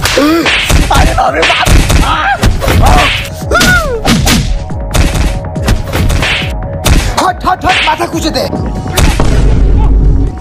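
A staged brawl: repeated thuds and smacks of blows landing, mixed with short shouts and cries.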